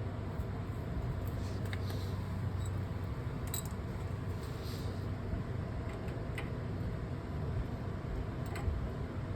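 Steady low hum with a few faint, light clicks and taps scattered through it.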